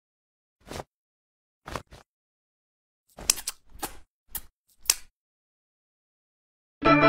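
Cartoon eating sound effects: two brief soft sounds in the first two seconds, then a run of quick clicky smacking sounds between about three and five seconds in, with dead silence between them. Organ music starts just before the end.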